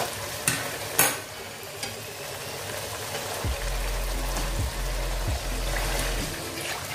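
Potato pieces sizzling in mustard oil and spice paste in an aluminium kadai, with a metal spatula knocking against the pan twice in the first second.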